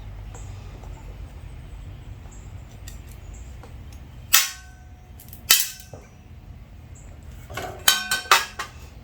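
Small metal parts and hand tools clinking as they are handled and set down: two sharp clinks with a brief ring about four and five seconds in, then a quick cluster of clinks near the end, over a low steady hum.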